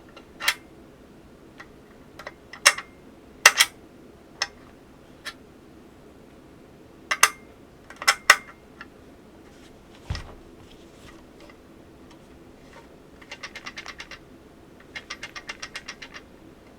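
Hands handling a Cidoo V87 Pro keyboard and its boxed parts: scattered sharp clicks and knocks, a dull thud about ten seconds in, then two quick runs of rapid ticking near the end.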